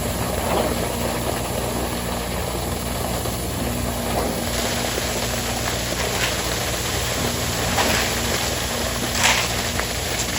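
Engine of construction machinery on a concrete pour running steadily, with a few short scrapes or knocks near the end.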